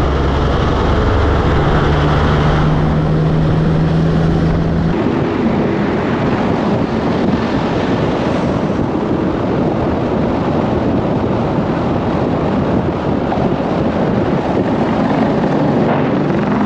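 Semi-trucks travelling at highway speed: a steady engine drone under heavy road and wind noise. About five seconds in the sound changes abruptly, the drone dropping back and the wind and road noise taking over.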